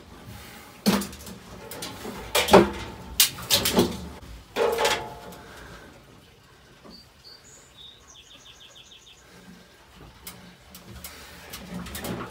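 A heavy 5-horsepower dust-collector motor assembly knocking and scraping against the cyclone's resin housing as it is heaved into place by hand, with several sharp clunks in the first five seconds and more handling noise near the end. A bird chirps and trills in the quieter stretch between.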